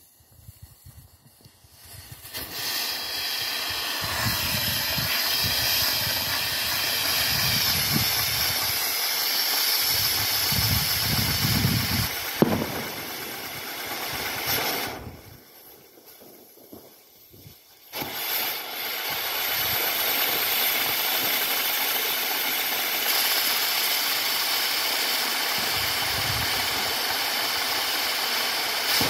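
Firework sun wheel (a 60 g F2 'Mega Sol') hissing as it burns and sprays sparks. The hiss starts about two seconds in and dies down partway through, with a sharp pop just before, then a second stage starts hissing again and runs nearly to the end.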